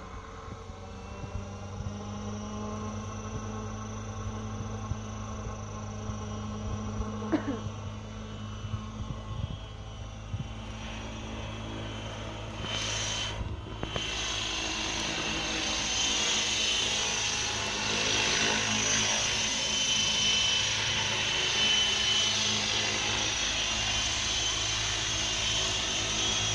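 Align T-Rex 700E DFC electric RC helicopter on a 12S LiPo pack, its rotor spooling up and the model lifting off into a hover. It makes a steady rotor hum with a high motor whine that grows louder about halfway through as it takes off.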